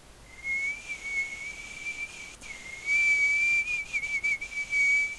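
Someone whistling one long high note that wavers slightly in pitch, broken by a few brief gaps.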